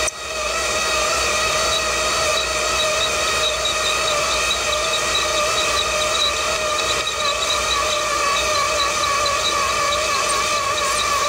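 Electric roller motors of a Bright Tech Developments bus number display winding the printed blind from roller to roller: a steady, slightly wavering motor whine with several overtones. The sound dips briefly at the very start.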